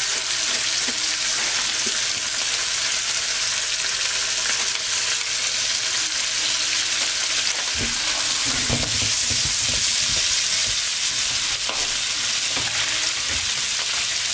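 Beef steak sizzling steadily as it fries in foaming butter and oil in a nonstick frying pan, searing its first side. A few low knocks come about eight to nine seconds in.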